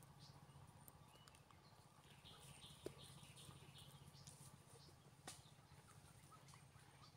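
Near silence: faint outdoor background with a short run of faint, quick chirps about two and a half seconds in, and two soft clicks, one about three seconds in and one about five seconds in.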